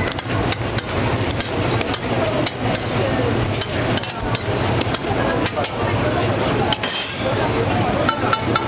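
Metal tongs clicking and scraping on a flat-top griddle as hotteok are moved and turned, over the steady sizzle of the griddle.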